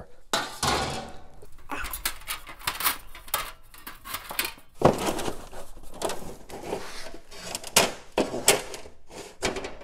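Metal road signs stacked upright on a shelf being leafed through by hand: sheet-metal signs clattering, knocking and scraping against one another in an irregular string of knocks.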